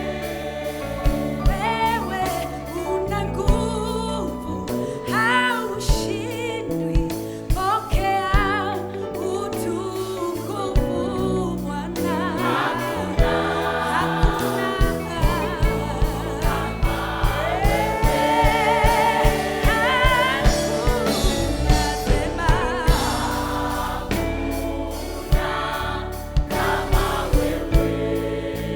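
Gospel music: a choir singing over a band, with a steady drum beat.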